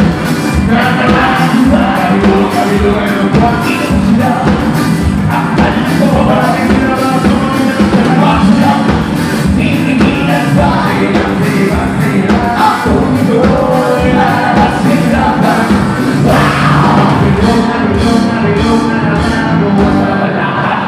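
Live band playing loud rock music with a singer, over drums, bass guitar and a horn section of saxophone and trumpet.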